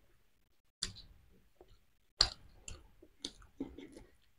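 Eating sounds: a handful of quiet, scattered clicks and smacks from chewing and from handling peeled boiled eggs and herbs, the sharpest a little after two seconds in.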